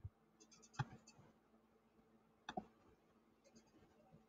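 Near silence, broken by three faint computer mouse clicks: one about a second in and a quick pair just past the middle.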